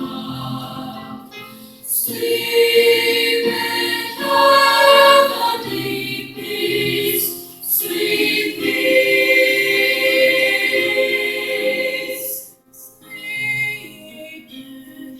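School chorus singing a sustained choral piece in phrases, with short breaks between lines about 2 and 8 seconds in and a brief drop near the end.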